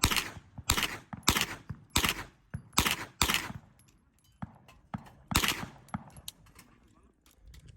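Handgun shots with echoing tails: about six loud shots at roughly half-second spacing, a pause, then one more about five and a half seconds in, with fainter shots between.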